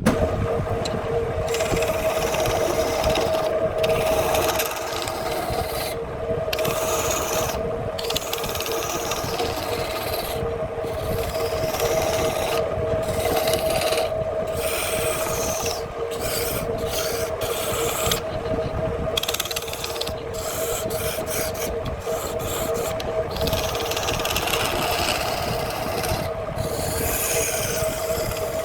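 Handmade wood lathe running with a steady two-tone motor hum while a hand-held tool scrapes against the spinning wood; the scraping lifts off and comes back many times.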